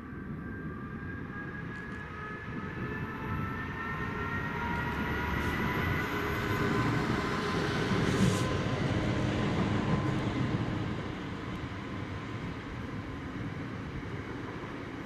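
Class 66 diesel locomotive hauling a loaded freight train of hopper wagons past: the locomotive's engine, with a whine rising in pitch over the first several seconds, then the wagons' wheels rumbling by on the rails, loudest about halfway through.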